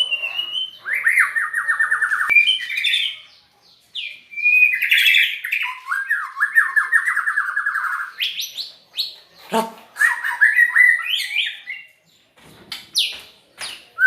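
White-rumped shama singing a varied song: two long rapid trills of quickly repeated notes, each about two seconds, mixed with short whistles and chirps.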